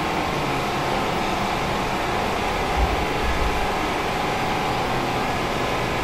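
Steady background noise: an even hiss with a low rumble and no distinct events.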